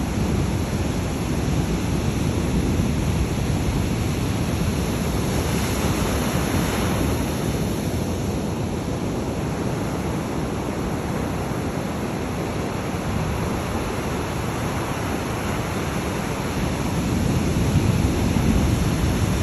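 Ocean surf on a beach: a steady rush of breaking waves, with one swell about six seconds in and another near the end.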